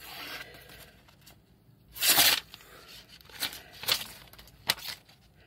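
Knife blade slicing through paper while the sheet is handled: papery rustling and tearing, with one loud slicing rush about two seconds in and a few shorter ones after it.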